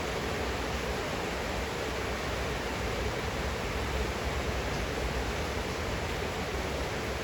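Heavy rain falling steadily, an even rushing noise with no single drops or other sounds standing out.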